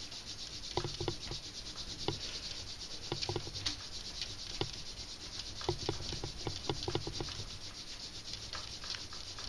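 Paper being handled, creased and flattened by hand: many small crinkles and clicks with a faint rustle.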